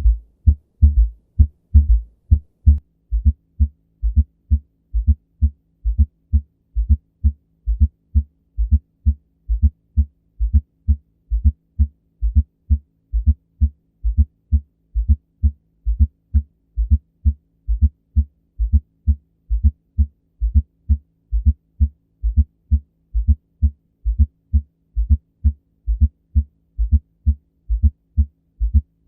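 Abnormal heart sounds: a regular run of low thumps, about two to three a second, with a faint steady hum underneath from about three seconds in.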